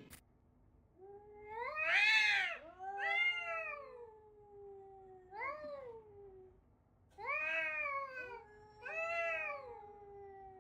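A domestic cat yowling in a series of about five long, drawn-out meows that rise and fall in pitch. The first is the loudest.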